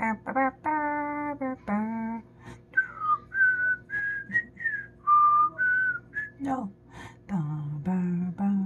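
A voice sings a simple tune in held low notes, then gives way to a run of clear whistled notes, several sliding down or up in pitch, before the singing returns near the end.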